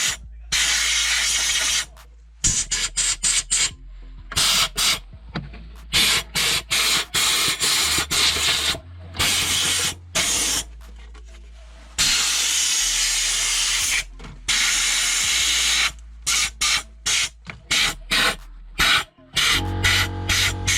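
Compressed air blowing dust off a graphics card in repeated blasts: a string of short hisses and several longer ones of a second or two, each starting and stopping sharply.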